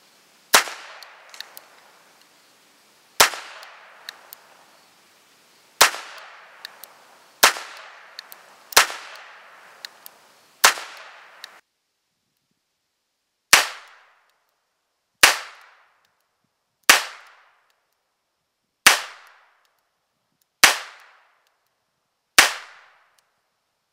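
Harrington & Richardson Model 622 .22 rimfire revolver fired twelve times, in two strings of six shots about two seconds apart. Each shot is a sharp crack with a fading tail, longer after the first six.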